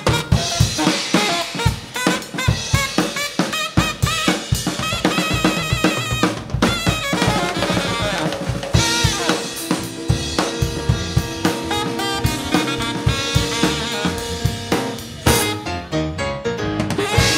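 Live funk band playing: alto saxophone lines over a busy drum kit, with snare and bass-drum hits and electric bass.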